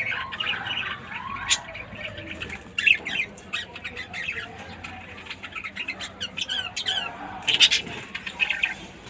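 Lovebirds chirping and squawking in quick short calls, with a louder cluster of calls about seven and a half seconds in.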